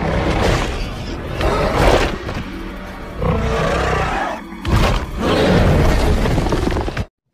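Film soundtrack of a dinosaur fight: dramatic music mixed with creature roars and booms, cutting off suddenly near the end.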